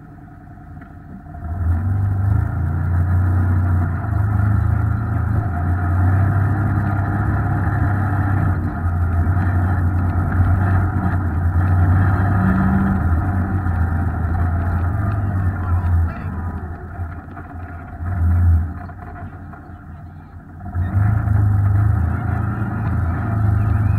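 Off-road vehicle's engine driving along a dirt trail: a steady low drone that picks up about a second and a half in, eases off for a few seconds late on, and picks up again near the end.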